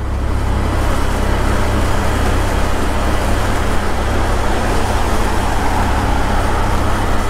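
Wind rushing over the microphone with engine and road noise from a moving motorcycle, building over the first second and then steady.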